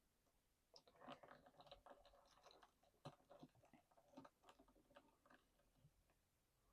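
Near silence broken by a few faint clicks and light rustles: a plastic action figure being handled and set on its feet to stand.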